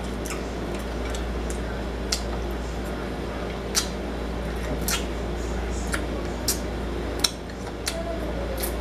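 Close-up eating sounds: wet mouth smacks and clicks, about half a dozen sharp ones at irregular intervals, as fried chicken wing meat is picked off the bone and eaten and fingers are licked, over a steady low hum.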